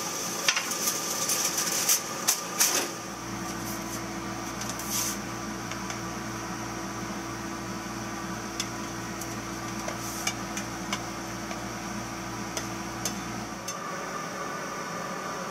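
Metal spatula clinking and scraping in a frying pan for the first few seconds. Then a steady low electrical hum, with a few light clinks of a utensil on the pan and plate, stops shortly before the end.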